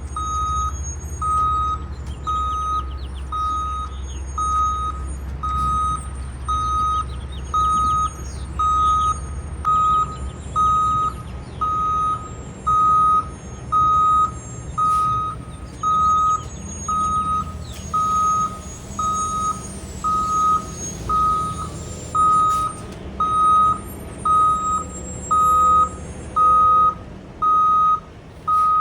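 Reversing alarm on a piece of paving equipment, beeping steadily about once a second over the low rumble of heavy engines.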